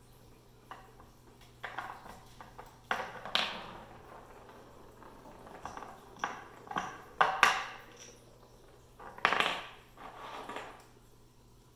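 Puppy working a Nina Ottosson dog puzzle: cylinder pegs knocking and clattering against the round board and the hard floor as they are nosed and pawed out of their holes, in irregular knocks, with the loudest a little past halfway and about three-quarters through.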